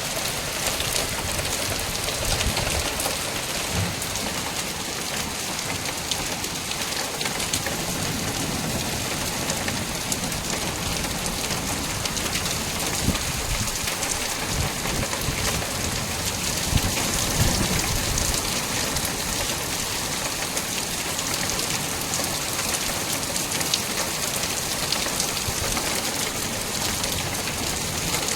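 Heavy rain mixed with hail: a steady hiss of downpour, dotted with many small, sharp impacts of hailstones striking surfaces.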